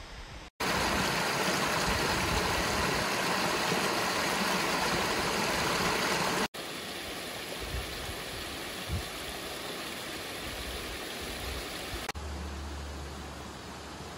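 Steady rushing of a mountain stream, loudest for the first several seconds, then softer after two abrupt cuts. A low rumble joins near the end.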